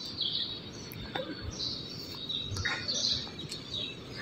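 Small birds chirping, short high chirps repeating every second or so over a low, steady background noise.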